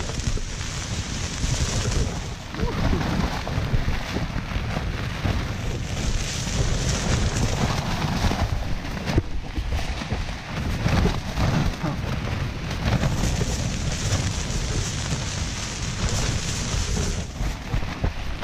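Heavy wind and rain hitting a backpacking tent, heard from inside: a low gusty rumble, buffeting that rises and falls, and a hiss of rain on the fabric that swells in waves every few seconds.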